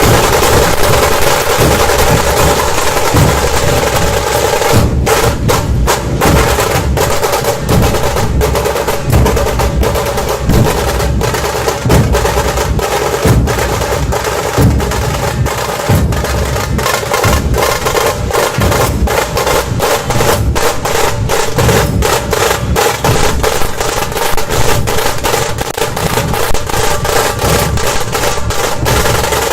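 Puneri dhol-tasha ensemble drumming loudly: big dhol drums beating a steady rhythm under continuous rolls on the tasha drums. The separate strokes come through more sharply about five seconds in.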